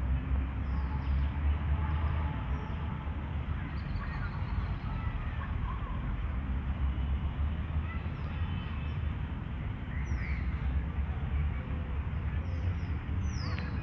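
Several birds chirping and calling in short, scattered notes, some sliding down in pitch, over a steady low rumble.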